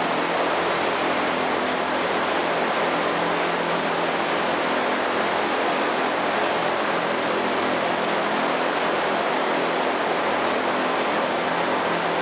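Steady, even hiss with a faint low hum from a running Haas VF-4 CNC vertical machining center.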